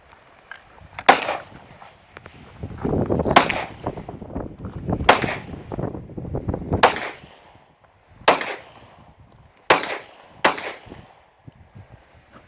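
Gunshots on an outdoor range: about seven sharp reports, unevenly spaced a second or two apart, each trailing off in an echo.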